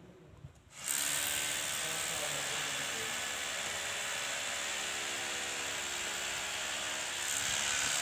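A machine's motor whirring, loud and steady. It starts abruptly about a second in and runs on without a break.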